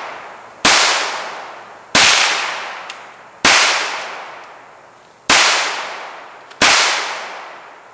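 Five .22 rimfire gunshots, 1.3 to 1.8 seconds apart, each with a long echo that fades away, fired at a spinning steel target.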